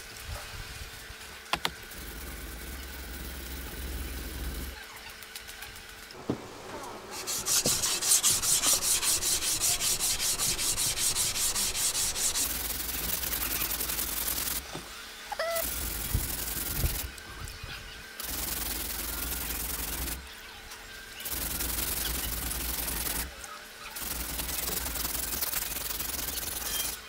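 Yanagiba sashimi knife being sharpened by hand on wet whetstones: quick back-and-forth strokes of steel rubbing on stone. The strokes come in runs broken by short pauses.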